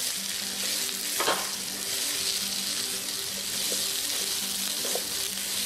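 Eggplant pieces in spice masala sizzling as they fry in oil in a non-stick pan, stirred with a silicone spatula. There is a short scrape of the spatula about a second in.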